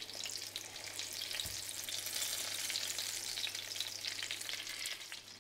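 Coated garfish fillets frying in shallow oil in a stainless steel frying pan: a steady, crackling sizzle as tongs turn and lift the fillets.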